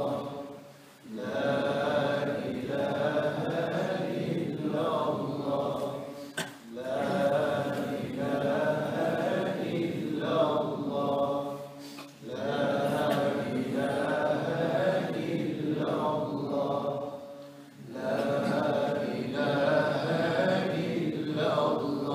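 Men's voices chanting dhikr together in unison, in long sustained phrases broken by brief pauses about every five seconds.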